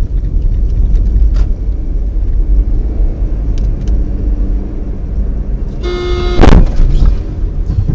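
Heavy low road and engine rumble from a moving car as picked up by a dashcam. About six seconds in, a car horn sounds for under a second and ends in one loud bang.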